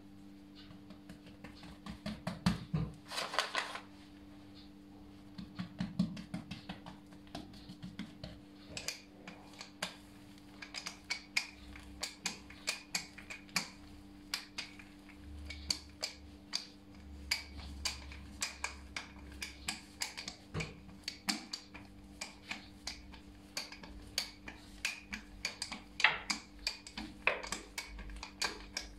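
Wooden rolling pin rolling out a slab of yeast dough on a granite countertop, giving many light, irregular clicks and taps, after a brief rustle of flour being scattered on the dough near the start. A steady low hum runs underneath.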